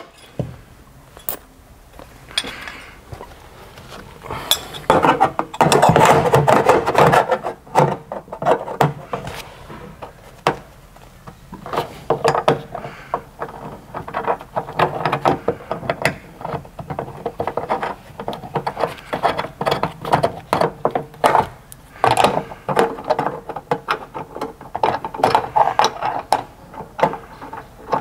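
Steel seat-belt mounting plate and bolts being fitted by hand inside a van's rear body pillar: repeated metal clinks, taps and scraping, in several spells with quieter gaps between.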